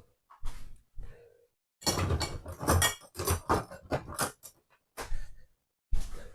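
Kitchenware knocking and clattering: a run of short, irregular knocks, densest in the middle.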